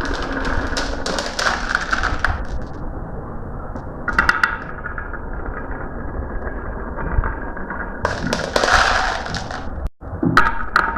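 Marbles rolling and clacking down a marble run: a steady rolling rumble with bursts of rapid clicks near the start, about four seconds in and again around eight to nine seconds. The sound cuts out for an instant shortly before the end.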